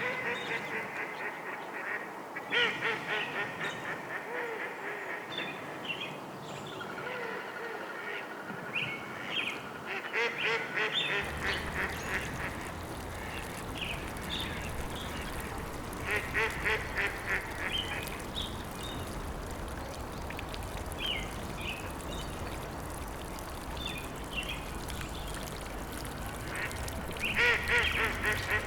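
Birds calling in an outdoor nature recording: several bursts of rapid, chattering calls, with shorter single calls between them. A low, steady rumble of background noise comes in abruptly about eleven seconds in.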